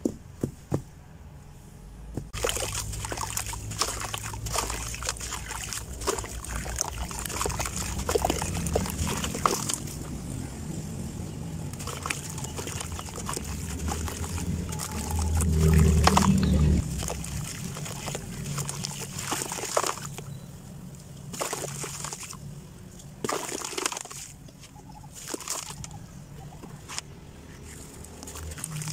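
Dry red dirt crumbling by hand from a pressed block and pouring into a tub of water: gritty crunching and trickling with many small clicks, plus sloshing and splashing. It starts about two seconds in and is loudest around the middle.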